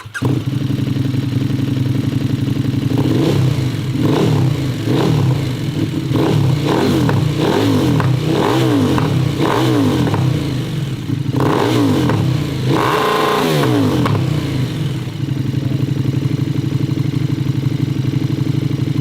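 KTM 1290 Super Duke R's V-twin engine through an Austin Racing full titanium exhaust, idling, then revved in repeated throttle blips for about ten seconds, the highest rev about two thirds of the way in, before settling back to a steady idle.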